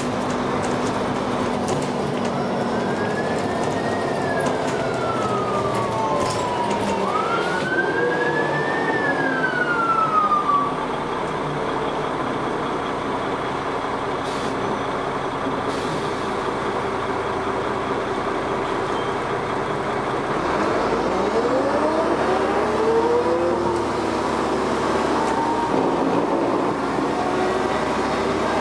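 Dennis Arrow double-decker bus under way, its engine and ZF automatic gearbox running over steady road noise. A gearbox whine rises and falls in pitch twice in the first ten seconds as the bus speeds up and slows, then climbs again from about twenty seconds in.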